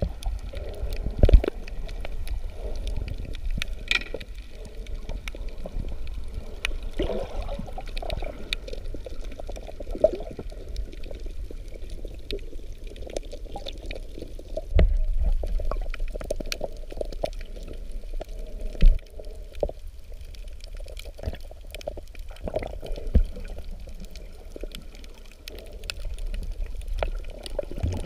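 Muffled water sloshing and bubbling heard underwater at a snorkeling camera, with scattered sharp clicks and knocks.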